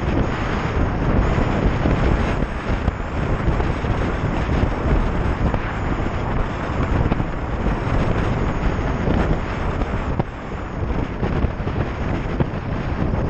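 Wind rushing and buffeting over a helmet camera's microphone on a moving motorcycle, with the motorcycle's running and road noise underneath.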